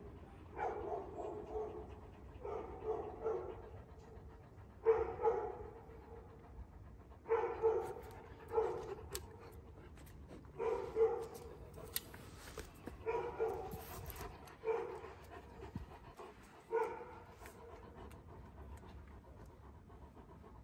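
A young Kangal shepherd dog panting in short bouts about every two seconds, each bout a quick run of breaths with a slight voiced edge. A few light clicks sound around the middle.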